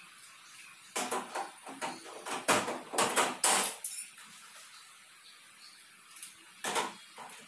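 Metallic clattering and knocking as aluminum framing pieces and a hand tool are handled on a tiled floor: a quick run of sharp knocks about one to four seconds in, and another short burst near the end.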